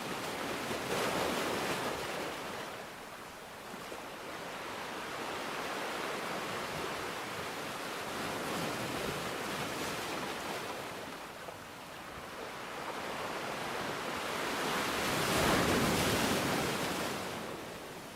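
Even rushing water noise that swells and fades in slow surges every several seconds, loudest near the end.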